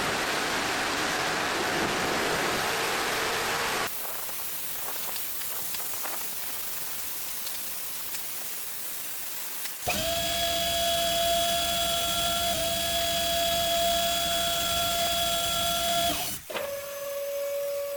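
Touchless automatic car wash machine at work: a loud even hiss of water spraying for about four seconds, then quieter running, then from about ten seconds in a steady motor whine that breaks off and resumes slightly lower near the end.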